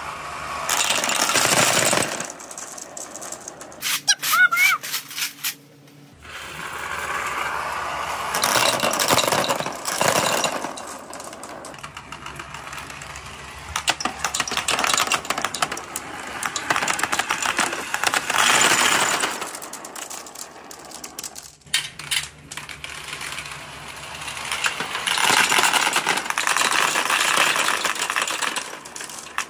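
Glass marbles rolling down a clear plastic tube and clattering onto a pegboard chute into a pile of other marbles. The dense rattling clicks swell and fade several times.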